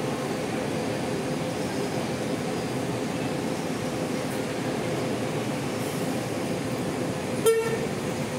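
Diesel coach engines idling and moving off with a steady rumble and hum. A brief, loud horn toot sounds about seven seconds in.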